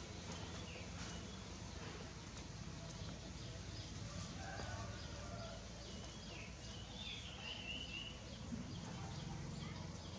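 Chicks peeping a few times in short chirps, with some lower calls from the flock, over a steady low background noise.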